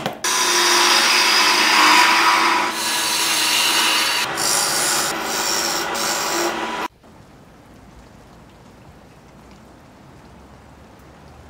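Wood lathe turning: a flat turning tool cutting the face of a spinning block of wood, a loud, steady rasping hiss that shifts a couple of times and cuts off suddenly about seven seconds in. A low, steady background remains afterwards.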